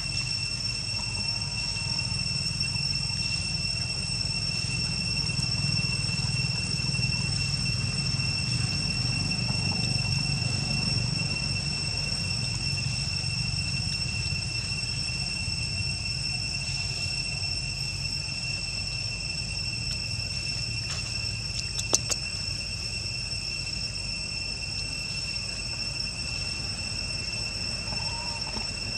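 Insects shrilling steadily, a continuous high whine at two pitches, over a low rumble. One sharp click about 22 seconds in.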